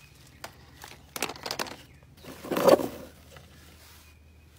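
Eggs being picked from a wood-shaving nest box and set into a wicker basket of eggs: light clicks and knocks of shell on shell and on wicker, with rustling. A single click comes about half a second in, a quick run of clicks a little after one second, and a louder rustling clatter shortly before three seconds.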